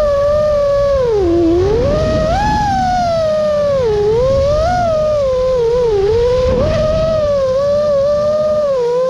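The brushless motors and propellers of a 5-inch 6S FPV quadcopter whining, the pitch swinging up and down with the throttle over a low rush of wind on the onboard GoPro microphone.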